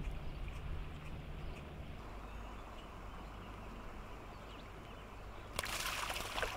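Steady rush of river water, with a low rumble for the first two seconds. Near the end, a sudden splash as a released smallmouth bass bolts out of the hands into shallow water.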